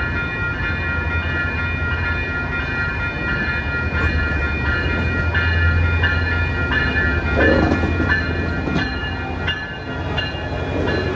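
Siemens Charger SC-44 diesel-electric locomotive of a Coaster commuter train running past along the platform. Its engine rumble is loudest from about four to eight seconds in as it goes by, followed by the bilevel coaches rolling past with wheel clicks.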